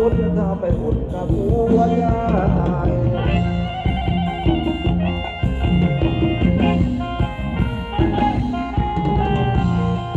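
Live band playing Thai ramwong dance music: drum kit and electric guitar over a steady dance beat, with a sustained melody line on top.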